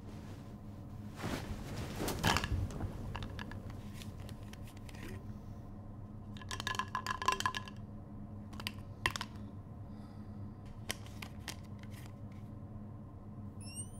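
Small sharp clicks and rustles from a small hard object being handled, in scattered clusters over a steady low hum.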